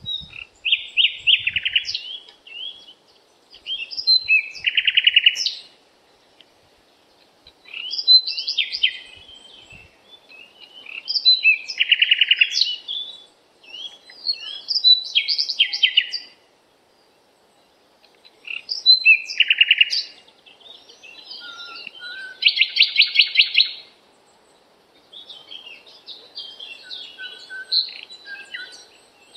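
Birds singing: short phrases of chirps and trills, repeated with brief pauses between them, over a faint steady hiss.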